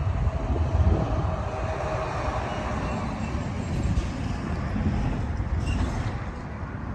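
Wind rumbling on the microphone, with traffic passing on a road: a vehicle's noise swells over the first few seconds and fades.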